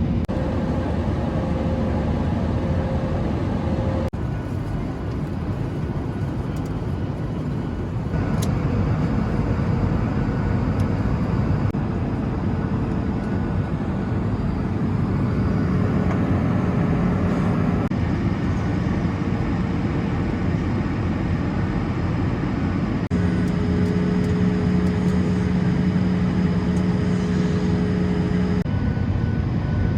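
Steady roar of a Boeing 737's CFM56 jet engines and airflow heard inside the passenger cabin, with a low hum whose pitch changes from one spliced segment to the next.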